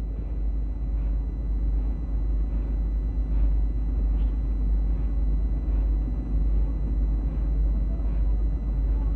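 Steady low hum and hiss of an old 1970 archival recording, with no voice. Faint soft pulses recur a little more than once a second.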